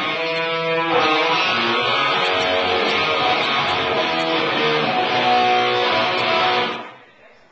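Electric guitar strumming chords during a band sound check, then stopping abruptly near the end.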